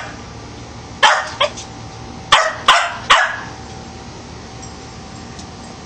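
Bichon Frise barking: five short, sharp barks in about two seconds, starting about a second in.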